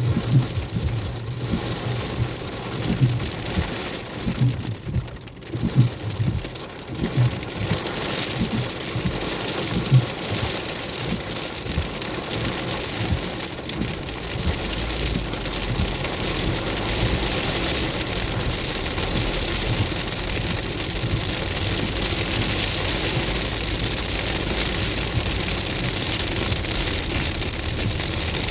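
Hail and rain pelting down in a dense, steady hiss, with irregular low thumps through the first ten seconds.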